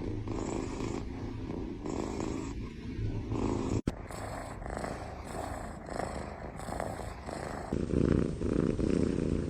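A cat purring steadily, the purr swelling and fading with each breath, with a brief break just under four seconds in.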